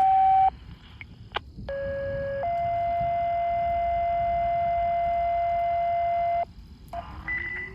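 Outdoor tornado warning sirens holding steady tones at several different pitches. Each tone starts and stops abruptly, and the longest runs about four seconds at one pitch.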